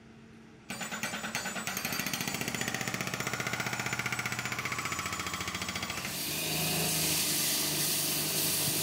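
Walk-behind concrete saw running: a loud machine sound with rapid, even pulsing starts abruptly about a second in, turning steadier about six seconds in.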